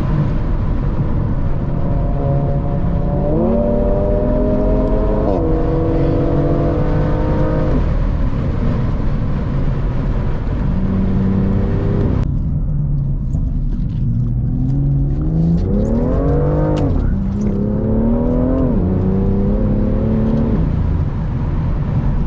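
BMW M2 with an M Performance exhaust accelerating on the road. The engine note climbs and then falls sharply at each gear change, several times over, with the longest, hardest pull about two-thirds of the way through followed by a quick second one.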